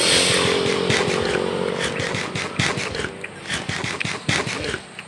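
Puppy lapping milk from a styrofoam tray: quick wet licks, about four a second. A passing vehicle engine fades away over the first two or three seconds.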